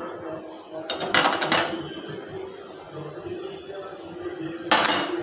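Metal spatula scraping across a steel plate and the rim of an aluminium pot, in two short bursts: one about a second in and one near the end, over a steady low hum.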